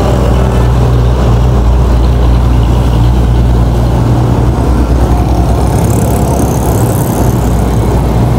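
Road traffic on a wet street: a nearby vehicle engine running with a steady low hum that eases about five seconds in. A hiss joins near the end as more vehicles pass.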